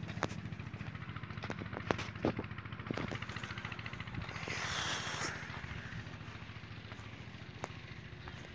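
Fiat 640 tractor's diesel engine idling steadily with an even pulse, slowly growing fainter. A few sharp clicks stand out over it, and there is a short hiss about four and a half seconds in.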